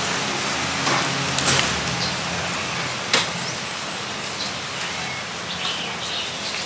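Street ambience on a walk: a steady hiss of background noise, with a low hum for the first couple of seconds and two sharp clicks, about one and a half and three seconds in.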